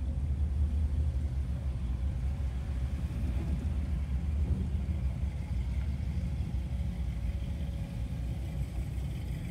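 Vehicle engines running with a low, steady rumble.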